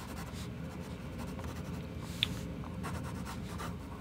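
Graphite pencil scratching on drawing paper in short sketching strokes, with one brief sharp tick about halfway through.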